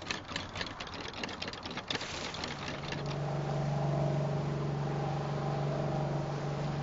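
Rapid crackling clicks for the first couple of seconds, then a boat's engine running steadily, fading in and growing a little louder.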